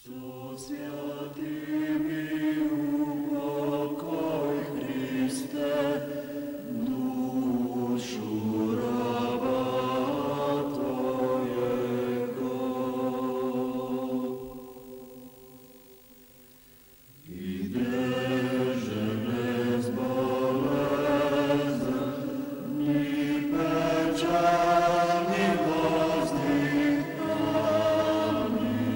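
Church choir chanting in held, sustained chords, in the style of Orthodox liturgical chant. The singing fades out about fourteen seconds in, and after a pause of about three seconds a new phrase starts.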